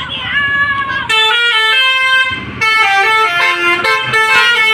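Basuri (telolet) musical horns on tour buses play a melody of held notes that step up and down in pitch, starting about a second in. At times more than one note sounds at once.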